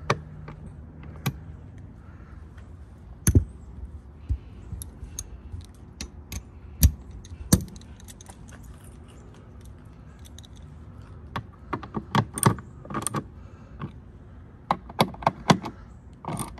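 Hand ratchet with a Torx socket clicking as the tail light's T30 screws are tightened. Sharp single clicks at first, then quick runs of clicks in the second half.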